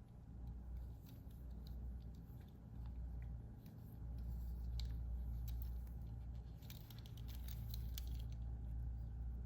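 Faint, scattered light clicks and rustles of hands handling a small die-cast toy car, thickest near the end, over a low steady hum.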